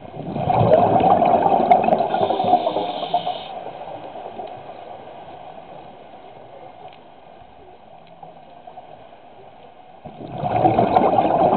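Scuba diver's exhaled breath bubbling out of the regulator underwater: a loud gurgling rush of bubbles for about three seconds just after the start, then a low hiss, then a second exhalation about ten seconds in.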